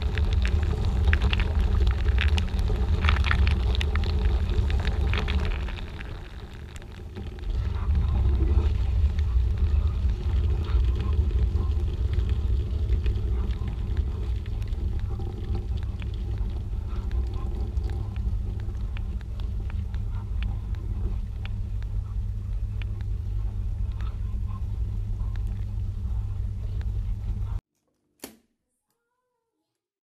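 V-Zug Adora N dishwasher running its wash cycle, heard from inside the foam-filled tub as a steady low rumble of pump and spraying water. The rumble dips briefly about six seconds in, then cuts off suddenly near the end, followed by a single click.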